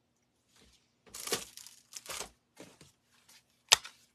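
Paper and craft supplies being handled, rustling and crinkling in a few short bursts, then one sharp click near the end, the loudest sound.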